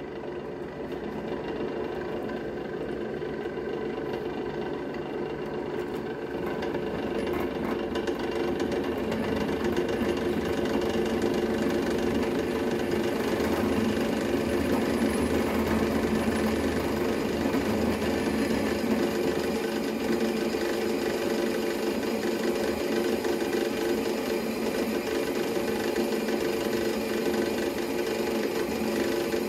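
Metal Master M32D floor drill press, with a three-phase motor, running under load as a 16 mm twist drill bores through a 10 mm metal plate in a single pass. A steady machine hum with cutting noise that grows somewhat louder several seconds in.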